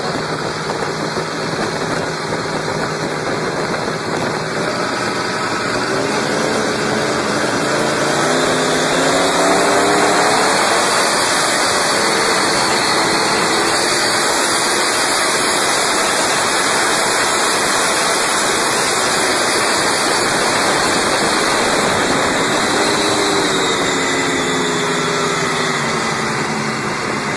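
Big supercharged engine in a small speedboat running hard at speed, its pitch rising as it revs up about five seconds in and again near the end, over a constant rush of water spray and wind.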